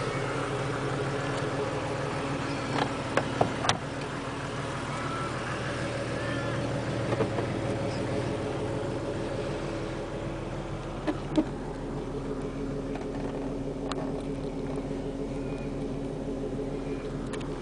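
Jeep Cherokee engine idling steadily, heard from inside the cabin, with a few sharp knocks and clicks: a cluster about three seconds in, another about seven seconds in, and a pair about eleven seconds in.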